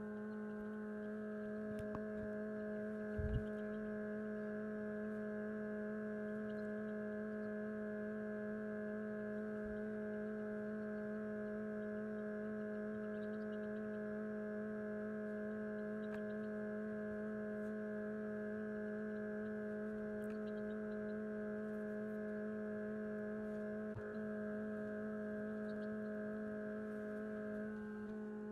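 Steady hum of an egg incubator's fan motor, several even tones held unchanged, with a brief thump about three seconds in.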